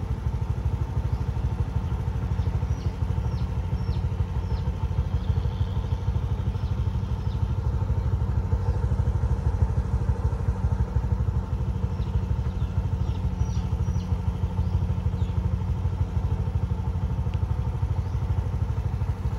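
Motorcycle engine running steadily, its even low drone unchanged throughout.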